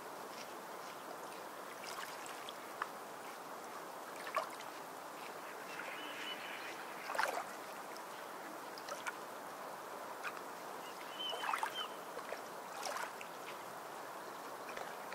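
Steady background hiss with scattered light taps and clicks, as a small paper tile is handled on a wooden tabletop, and two brief faint squeaks about six and eleven seconds in.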